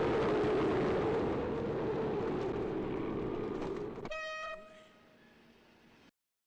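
A very long, loud, rasping burp, exaggerated for comic effect, that runs for about four seconds and cuts off abruptly. A short horn-like toot follows, then the sound goes quiet.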